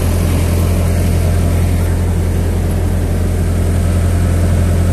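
Yanmar combine harvester's diesel engine running steadily: a loud, even, low drone.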